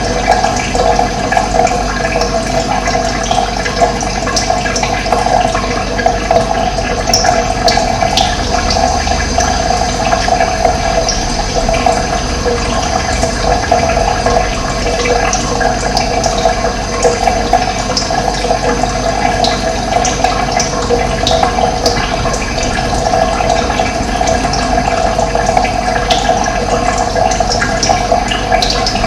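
Steady rush of running water, with a few faint, brief high bird chirps over it.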